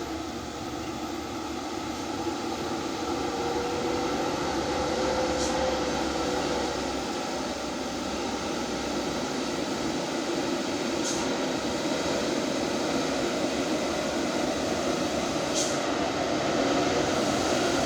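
Heavily loaded dump truck's diesel engine roaring on a downhill under a full load of stone, a steady mechanical drone that swells slightly a few seconds in.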